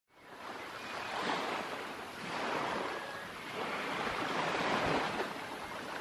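Surf washing onto a beach, swelling and ebbing every second or two, with some wind; it fades in from silence at the start.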